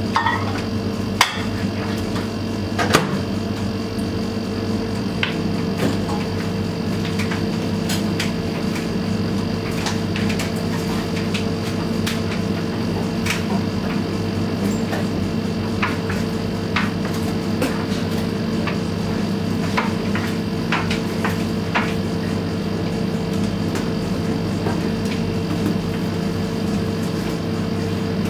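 Siemens front-loading washing machine running, its drum turning the laundry: a steady motor hum with scattered light clicks and knocks as the tumbling wash hits the drum.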